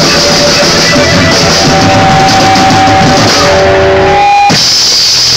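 Live blues band with electric guitar playing the final bars of a song, long held notes ringing out and then stopping abruptly about four and a half seconds in.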